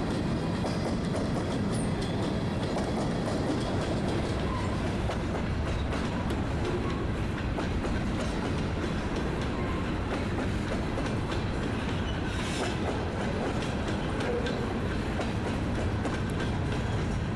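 Freight train of covered hopper cars rolling past close by: a steady rumble of steel wheels on rail, with the clickety-clack of the wheels running over the rail joints.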